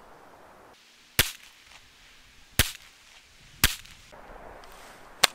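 SIG Pro SP2340 pistol firing .357 SIG through a conversion barrel: four single shots, spaced about one to one and a half seconds apart.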